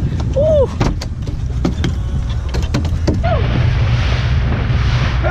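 Wind buffeting the microphone over a boat's low rumble, with scattered sharp clicks and two short rising-and-falling squeaks; after about three seconds the sound changes to a steady hiss of wind and splashing water.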